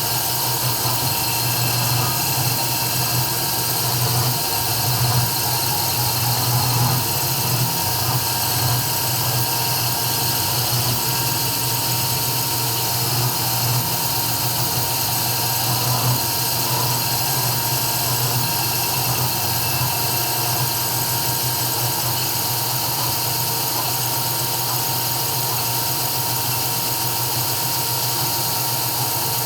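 CNC 3040 desktop router engraving: a steady whine and hiss from the spindle over a low hum, running evenly without a break.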